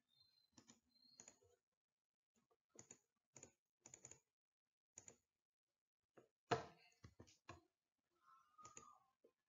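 Near silence broken by faint, irregular clicks, often in close pairs, with one louder click about six and a half seconds in.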